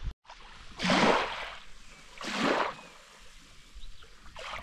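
Two paddle strokes through seawater from a stand-up paddleboard, each a short splashing swish, about a second and a half apart.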